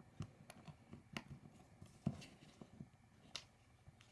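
Faint, scattered small clicks and taps of plastic and metal parts of a Toyota glovebox handle and lock being handled and tried in place, the loudest about two seconds in.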